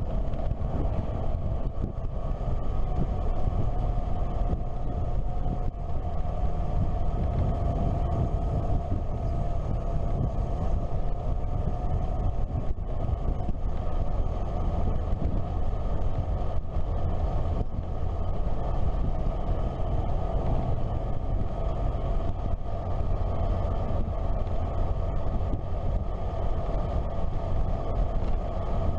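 Motorcycle engine running steadily while riding, with wind and road noise on the microphone.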